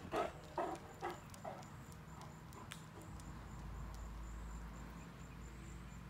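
A few footsteps on a brick-paver walkway, about two a second, that stop after the first second and a half. Then a faint low rumble with a thin steady insect buzz above it.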